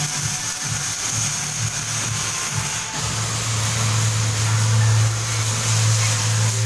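A steady low machine hum that starts about three seconds in, over a constant workshop hiss.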